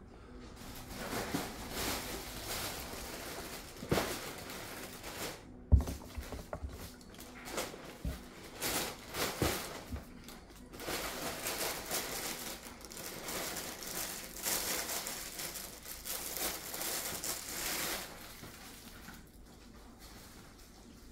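Uneven crinkling, rustling noise that starts about a second in and stops abruptly near the end, with a few sharp knocks, the loudest about six seconds in.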